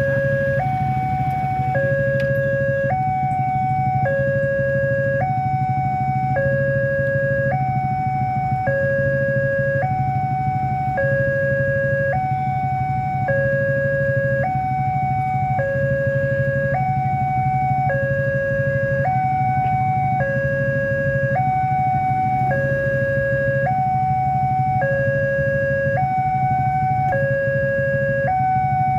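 Railway level-crossing warning alarm sounding while the barriers are down, warning of an approaching train. It is a loud electronic two-tone signal switching between a lower and a higher tone about once a second, over a steady low hum.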